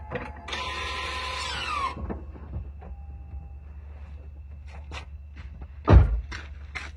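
Toyota bZ4X rear transaxle making a brief mechanical grinding whine that rises in pitch for about a second and a half, the abnormal transaxle noise the owner is recording. A single loud thump comes near the end, over faint scattered clicks and a steady low hum.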